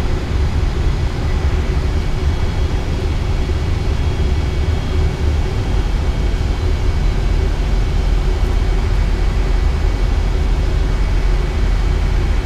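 Steady flight-deck noise of an Airbus A320 in flight: an unbroken deep rumble with a hiss over it.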